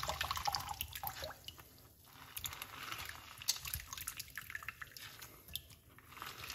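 Pomegranate juice squeezed by hand from a cut half, streaming and dripping into a glass bowl of juice, with many small irregular splashes and drips.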